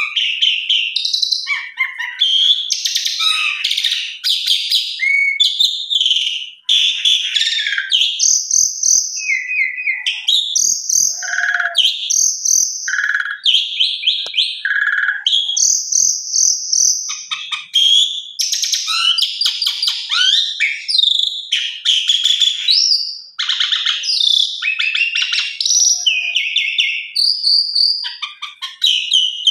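Asian pied starling (jalak suren) singing a long, busy song of clear whistles, slurred notes and harsh, buzzy chatter, packed with mimicked phrases.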